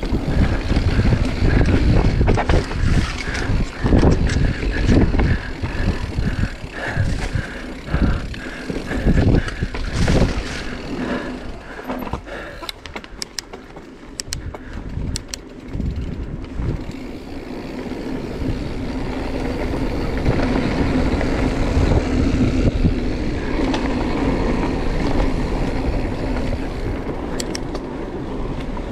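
Marin Mount Vision 8 full-suspension mountain bike rolling fast down a dirt singletrack: tyre and frame noise with many knocks and rattles over bumps in the first half, then a steadier rolling noise that builds in level in the second half.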